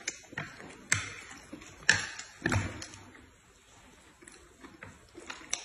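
Chopsticks and tableware tapping and clicking against plates while eating noodles: a handful of separate sharp clicks, the loudest about a second and two seconds in.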